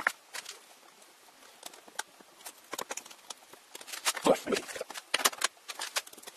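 Irregular sharp clicks and light metallic knocks of small hand tools and aluminium lever-frame parts being handled on a wooden workbench, with a heavier, duller knock a little over four seconds in.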